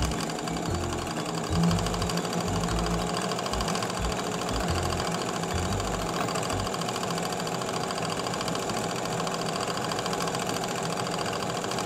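Industrial overlock machine running steadily at speed, stitching a scalloped cutwork pico edge on satin fabric, with a fast even stitching rattle. Irregular low knocks sound under it during the first several seconds.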